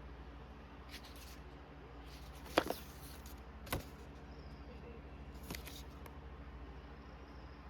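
Handling noise from a small keyboard accessory and its packaging: a few light clicks and brief rustles, the sharpest click about two and a half seconds in.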